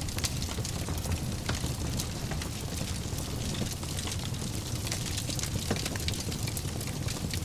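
Fire burning in a fireplace: a steady low rumble with frequent, irregular sharp crackles and pops.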